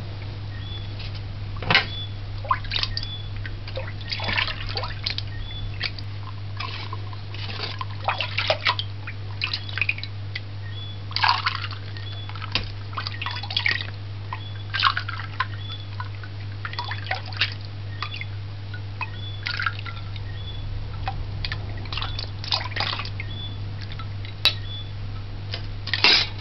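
Ice cubes clinking in a glass tumbler as it is dipped into a pot of sorrel drink and filled, with irregular sharp clinks, sloshing and dripping liquid. A steady low hum sits underneath.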